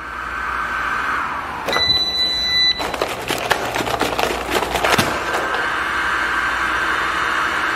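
Mistral robot vacuum cleaner: its motor whine slides down in pitch and fades about a second in, then a beep sounds. Clicks and knocks follow as it is handled, and the steady motor whine starts up again about five seconds in.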